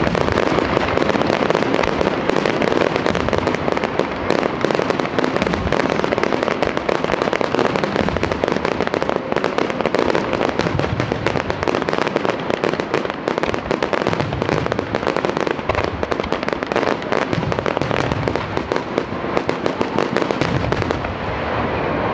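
A dense barrage of Japanese aerial firework shells heard at very close range: shells launching and bursting in quick succession, with continuous crackling over irregular low booms. The barrage thins slightly near the end.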